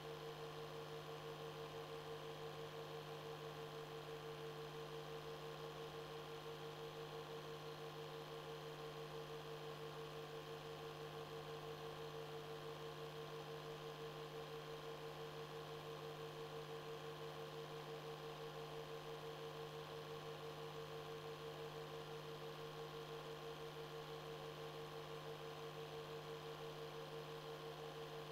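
Faint steady hum of several held tones over a light hiss, unchanging throughout; no speech, music or sound effects.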